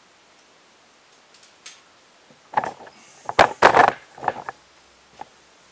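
A quick cluster of sharp knocks and rattles from tools being handled on a plywood subfloor, starting about two and a half seconds in and lasting about two seconds, with one faint click after.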